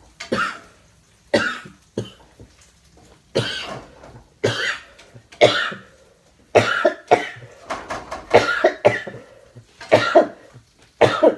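A man coughing in a long fit of about a dozen rough coughs, some coming in quick pairs. The coughing is put on, faked as if he were coughing up blood.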